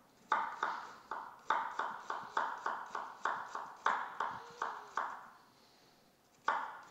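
Chef's knife dicing a red onion on a wooden cutting board: quick, regular knife strikes on the board, about three a second, pausing for a second or so near the end before starting again.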